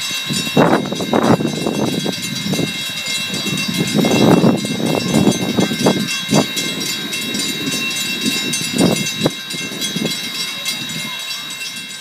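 Small steam locomotive (Viscose Company #6) hissing steam steadily, with a series of irregular, heavy exhaust chuffs as it moves slowly along the track.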